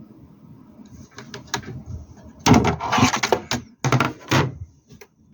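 Robot vacuum being handled: a few clicks, then two loud bouts of plastic knocking and scraping, as when the unit is pushed onto its charging dock.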